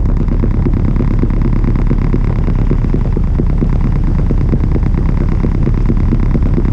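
Albin Vega sailboat's engine running steadily, pushing the boat along under power: a loud low rumble with a fast, even pulse.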